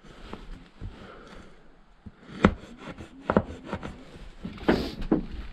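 Wood knocking and rubbing as things are handled in a van's small cargo space: a few separate knocks, a quick run of light taps about three and a half seconds in, and a louder rustling scrape near the end.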